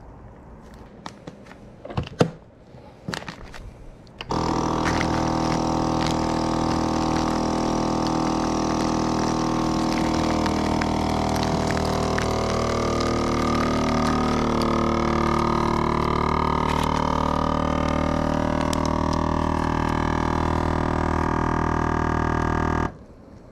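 A few clicks, then a Pro Series vacuum sealer's pump starts about four seconds in and runs steadily for about eighteen seconds, drawing the air out of a bag, before cutting off sharply near the end.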